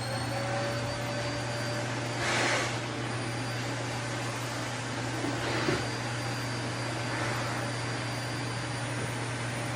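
Vacuum cleaner running with a steady rush and a high whine, its motor settling at full speed within the first second. The airflow swells louder briefly about two and a half seconds in and again just before six seconds.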